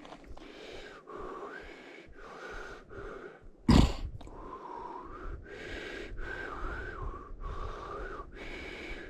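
A cyclist breathing hard in a steady rhythm, each breath carrying a wavering wheezy whistle. One sharp loud knock comes a little before halfway through.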